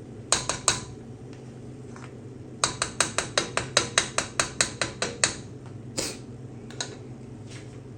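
A utensil tapping sharply against a pot while butter is knocked into the crawfish: three quick taps, then a fast even run of taps at about five a second lasting nearly three seconds, then two more single taps, over a steady low hum.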